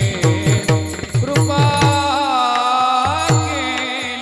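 Devotional kirtan music: a male voice sings a Marathi kirtan melody with long held, gliding notes, over brass taal hand cymbals and a drum keeping a quick beat. The drum strokes come about three a second in the first second and a half, then thin out while the voice holds a note.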